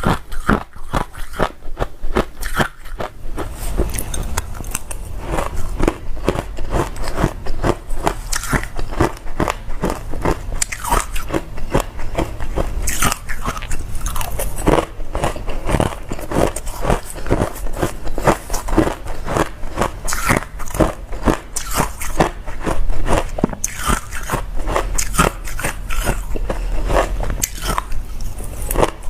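Close-up biting and chewing of hard ice: a dense run of sharp, irregular crunches, several a second.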